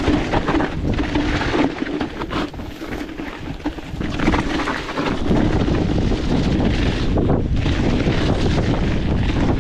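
Wind buffeting an action camera's microphone while riding an e-mountain bike on a rough trail, with knocks and rattles from the bike. The wind rumble grows heavier about halfway through.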